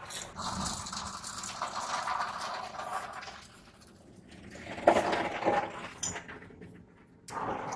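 Automatic car wash heard from inside the car: a steady wash of water and machinery over the body, with a louder clatter about five seconds in.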